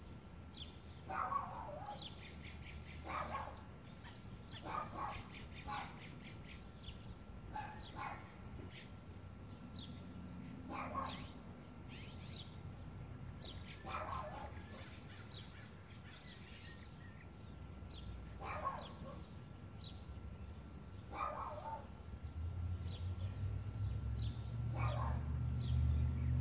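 Outdoor birdsong: many short high chirps, with a louder call repeated every two seconds or so. A low hum comes in briefly midway and swells near the end.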